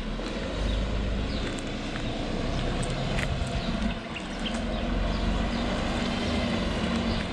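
Large expedition truck's engine running as it drives slowly in along a gravel track, mixed with a steady, shifting low rumble of wind on the microphone.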